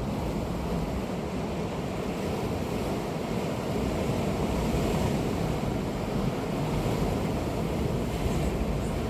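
Sea surf washing steadily onto the shore, with wind rumbling on the microphone.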